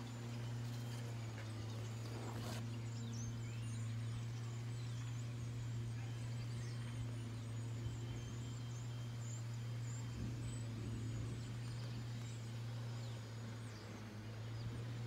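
Field ambience: a steady low hum with faint, scattered high bird chirps over it, and a brief rustle about two and a half seconds in.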